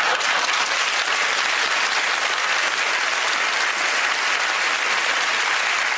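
Studio audience applauding steadily: dense, even clapping that holds at one level throughout.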